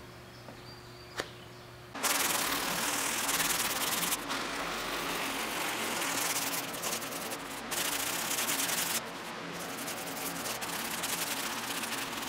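Hand sanding of body filler on a truck cab's door pillar with a folded sheet of sandpaper: a steady scraping with a few short pauses. It starts suddenly about two seconds in, after quiet room tone with a faint hum and a single click.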